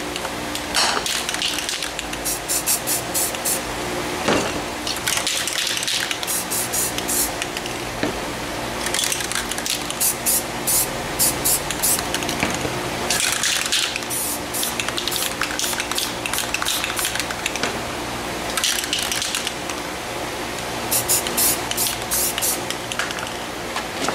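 Aerosol spray paint cans hissing as paint is sprayed, in bursts of varying length, some in quick runs of short spurts.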